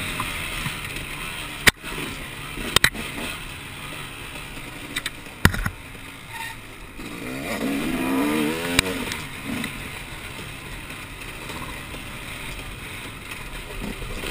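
Off-road motorcycle engine running, its pitch rising and falling with the throttle, mostly in the middle of the stretch. Several sharp knocks stand out above the engine.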